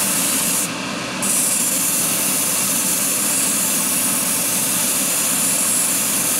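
Airbrush spraying 2K clear coat: a steady hiss of air and paint mist, which cuts out for about half a second just under a second in, over a steady lower hum.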